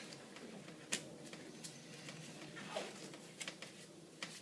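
Faint handling sounds of disposable kit gloves being put on: a few light snaps and clicks, about a second in and again near the end, and a brief rustle a little before three seconds in.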